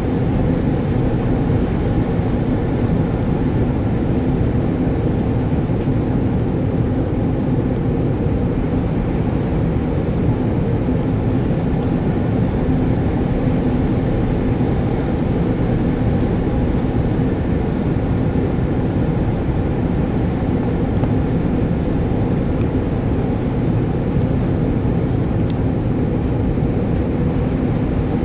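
Inside the cabin of an Airbus A340-600 on approach: steady engine and airflow noise from its Rolls-Royce Trent 500 engines, a constant low rumble with a steady hum.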